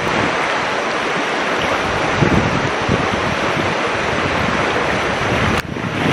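Steady rush of a swollen, fast-flowing river in flood, with wind buffeting the microphone.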